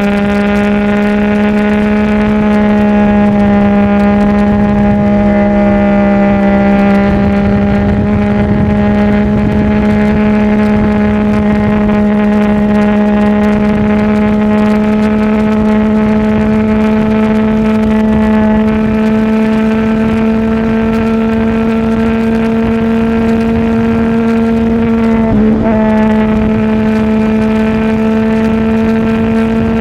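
CFMOTO 675 inline-three motorcycle engine through a titanium full-system aftermarket exhaust, pulling at steady high revs while riding, its note slowly rising, with a brief dip in pitch near the end.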